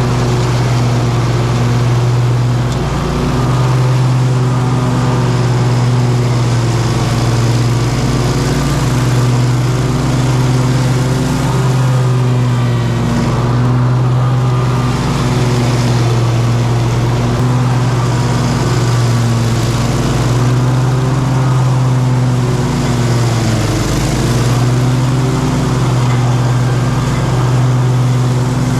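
An engine running at a steady speed, with a brief dip in pitch about 24 seconds in.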